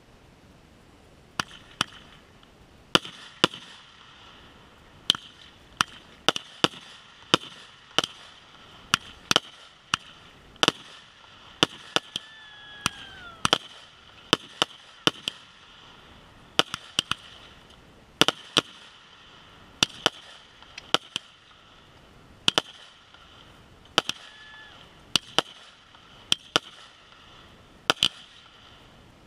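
Aerial fireworks firing in quick succession from one ground position, a rapid string of sharp launch reports and bursts about one or two a second. The shots start about a second and a half in and stop shortly before the end.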